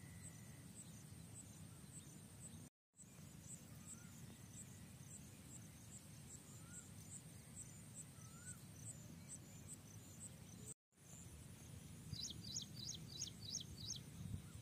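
Faint field ambience: an insect chirps steadily in a high pulse about twice a second, with a few soft short bird whistles. Near the end a bird gives a quick run of about six sharp calls, the loudest sound. A low rumble runs underneath, and the sound cuts out completely twice, briefly.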